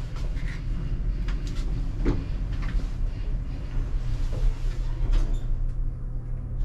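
Elevator car running: a steady low rumble and hum, with a few light clicks and knocks over it.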